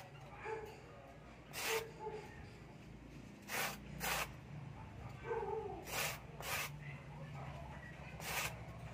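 Styrofoam disc scraped against a concrete floor in about six short strokes, some in quick pairs, rounding off its cut edge.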